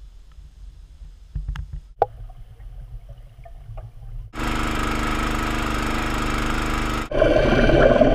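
Heard underwater: quiet water with a few knocks. About four seconds in, the steady hum of a Briggs & Stratton lawn-mower engine driving the boat's propeller starts. About seven seconds in comes a louder churning as the propeller thrashes the water into bubbles.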